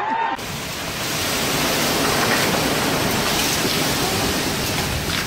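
Heavy rain driven by strong wind in a storm: a steady, dense hiss of noise that cuts in abruptly less than half a second in.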